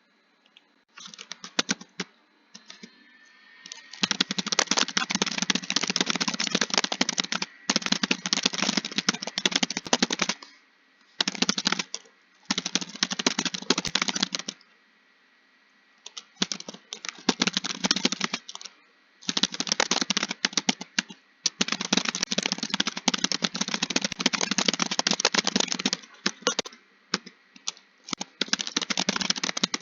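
Computer keyboard typing: rapid keystrokes in runs of several seconds, broken by short pauses of about a second or so.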